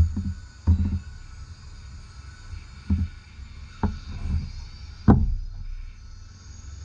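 A few dull, low thumps at uneven intervals, the loudest about five seconds in, over a faint steady hiss.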